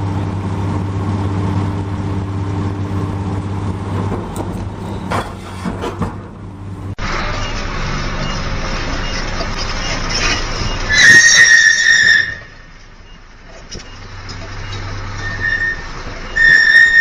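A heavy vehicle's engine running steadily, then a loud high-pitched squeal about eleven seconds in that comes back near the end.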